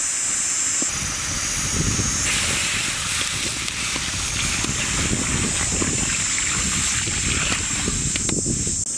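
Water pouring into a large steel wok, splashing onto the meat as the wok fills; the pour starts about a second in and stops just before the end.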